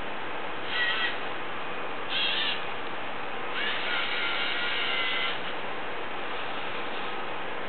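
LEGO Mindstorms NXT servo motors whirring as the robot arm moves: two short whines, then a longer one of about two seconds as the arm swings round, over a steady hiss.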